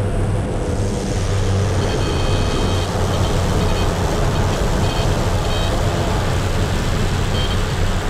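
Pilatus Porter's engine and propeller running loud and steady, heard from a camera outside on the wing strut, with air rushing past as the plane lands and rolls out on a grass airstrip.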